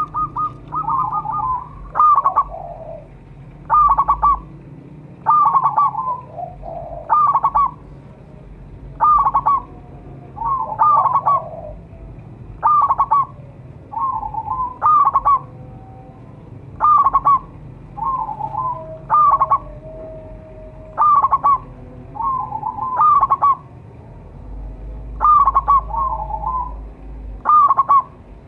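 Zebra dove (perkutut) cooing: short, high, stuttering coo phrases, each a quick run of clipped notes, repeated about every one and a half to two seconds.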